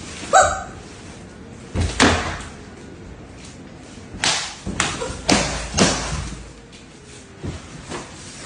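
A series of short bangs and thuds, about six spread irregularly, with a brief pitched sound near the start.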